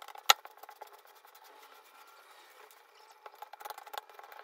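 Hands kneading sticky pizza dough on a floured countertop: soft rubbing with many small sticky ticks, and one sharp click about a third of a second in.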